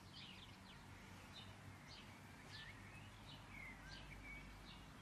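Faint birds chirping: a string of short chirps and a few brief sliding whistles, over an otherwise near-silent room.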